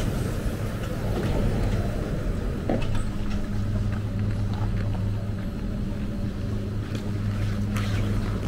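Detachable gondola station machinery, the tyre conveyors (launchers and decelerators) and the cable drive, running with a steady low hum. A few sharp clicks come as cabins roll through the station.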